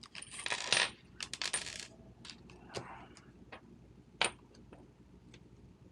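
Small metal gun parts and tools being handled: rustling, then a scatter of light metallic clicks and clinks, the sharpest about four seconds in.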